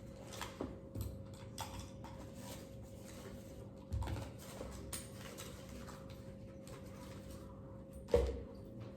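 Handling noises: scattered soft knocks and clicks as small objects are picked up and set down, the loudest a little after eight seconds in, over a faint steady hum.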